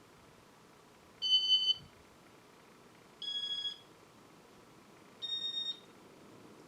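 Three short electronic beeps, each about half a second long and two seconds apart, each at a slightly different pitch.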